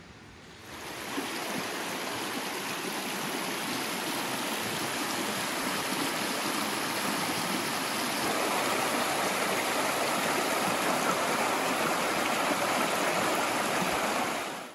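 Shallow rocky stream rushing over stones and small rapids: a steady water sound that fades in within the first second and cuts off abruptly at the end.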